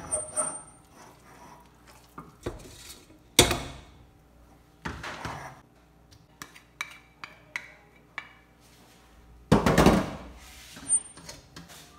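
A spatula scrapes and clanks against a wok and a stainless steel pot while thick radish-and-flour batter is scooped from one into the other. Scattered knocks and clicks, with the loudest about three and a half seconds in and a longer scrape around ten seconds in.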